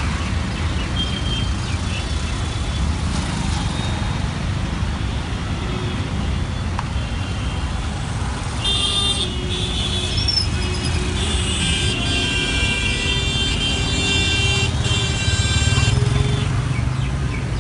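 Busy city road traffic with a steady rumble of engines. From about halfway through, vehicle horns sound repeatedly. Near the end a motorcycle engine swells close by.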